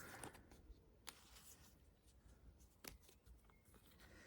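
Near silence with faint rustling of sticker sheets being handled, with a couple of soft clicks about a second and three seconds in.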